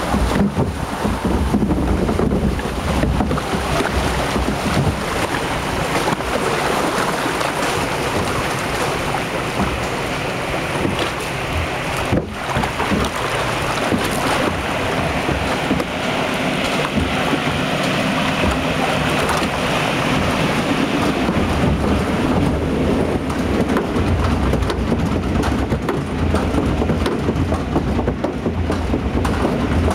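Water rushing along a log flume's trough under a riding log, with wind buffeting the microphone. In the second half a low rumble joins in as the log is carried up the lift hill.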